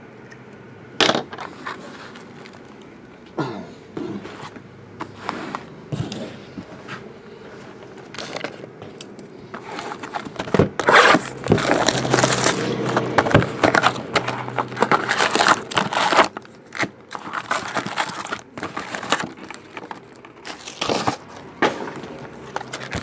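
A cardboard box of baseball card packs being opened by hand and its foil packs handled. A few sharp knocks come first, then dense crinkling, scraping and rustling from about ten seconds in.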